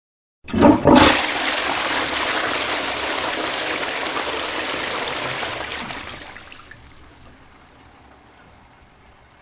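A couple of knocks, then a loud rush of water that holds steady for a few seconds and fades away over the last few seconds.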